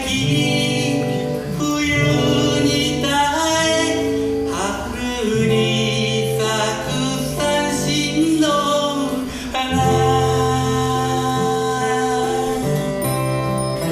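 A solo singer performing a song live over plucked-string accompaniment.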